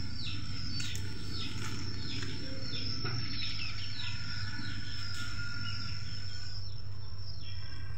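Garden ambience: a bird giving short falling chirps about twice a second, over a steady high-pitched insect drone and a low steady hum.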